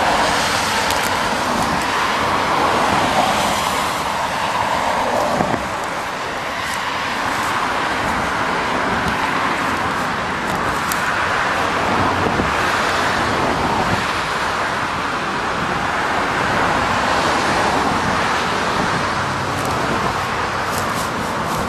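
Steady road traffic noise from passing cars, swelling and fading in waves as vehicles go by.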